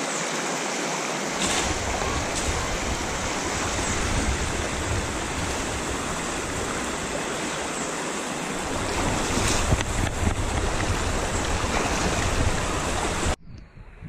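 Rushing water of a shallow rocky river stream flowing fast over boulders, heard close up as a steady, dense rush with some low rumbling, cutting off suddenly near the end.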